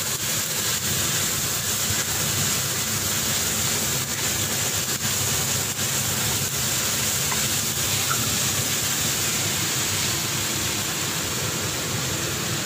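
Hot oil sizzling steadily as garlic, ginger and whole dried red chillies fry in a pan, with a few faint crackles.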